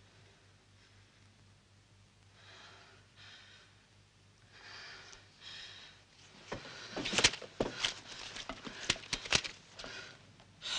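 A few soft breaths, then about six seconds in a run of sharp crackles and rustles as sheets of paper are picked up and handled at a desk.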